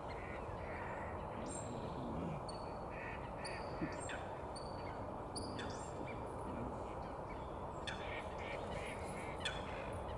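Waterbirds calling: scattered duck-like calls and short high whistles and chirps over a steady background hiss.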